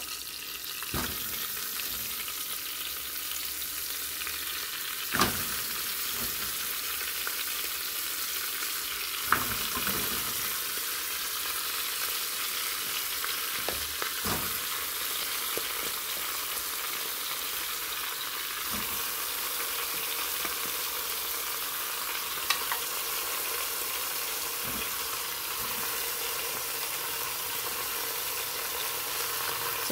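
Garlic and chicken sizzling in hot oil in a pressure cooker, a steady frying hiss. Now and then there is a short knock as more pieces of chicken are dropped into the pot.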